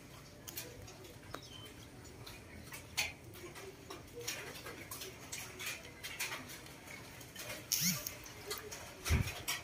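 Macaques eating rambutans and watermelon: scattered small clicks, cracks and rustles of fruit rind being handled and bitten, with a short rustle just before the end and a few low thumps right at the end.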